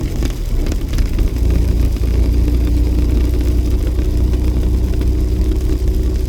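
Jeep driving on a snowy road: a steady low rumble of engine and road noise, with a faint steady hum coming in about two seconds in.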